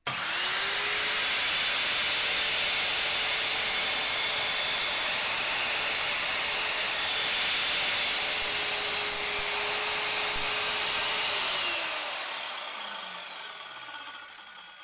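Evolution R185SMS sliding mitre saw starting up and running steadily as its new multi-material blade slides through a pine floorboard. About 12 seconds in, the trigger is released and the blade spins down with a falling whine.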